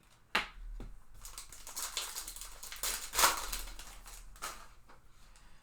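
Trading card packs and cards being handled, with the crinkling and rustling of a foil pack wrapper. A sharp crackle comes just after the start, then a few seconds of rustling that fades out.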